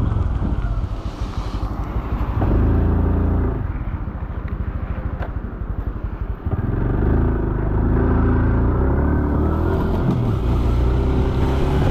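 Honda Super Cub C125's single-cylinder four-stroke engine running as the bike rides. Near the middle it drops for about three seconds to a slow, pulsing beat of separate firing strokes, then picks up and runs steadily under way again.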